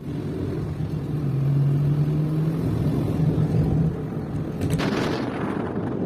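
Car driving along a road, heard from inside the cabin: a steady low engine hum and road noise, with a brief rush of noise about five seconds in.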